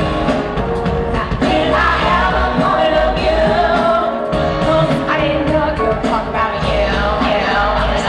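Amplified live pop-rock band music with singing, with a steady bass beat.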